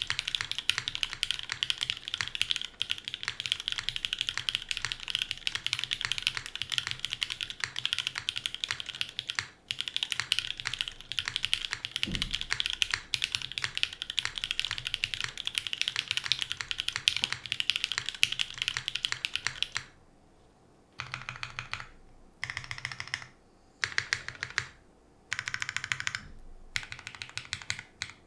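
Mechanical keyboard with SP-Star Sacramento linear switches on a polypropylene plate and GMK keycaps, typed on fast and without a break. About twenty seconds in the typing stops and short bursts of rapid presses on the modifier keys follow, with brief pauses between them. There is a single low thump about twelve seconds in.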